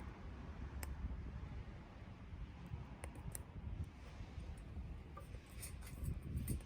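Softwood burning in a small wood-gas stove: scattered sharp crackles and pops over a low rumble, with a quick run of crackles near the end.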